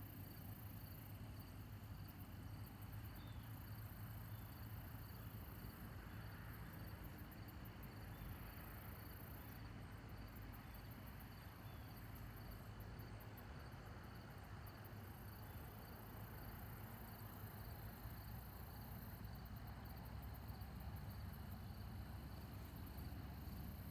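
Faint, very high-pitched insect chirping that comes in rapid repeated trains, several seconds at a time with short gaps, over a steady low rumble.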